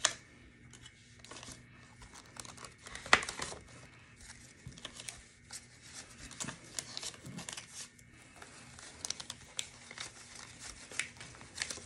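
Paper US dollar bills rustling and crinkling as a stack of cash is leafed through and counted by hand, with many short irregular crackles; the sharpest comes about three seconds in.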